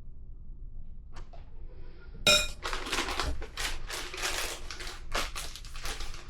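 A single ringing clink of a utensil against a dish about two seconds in, then rapid crackling of a plastic zipper freezer bag being handled and filled.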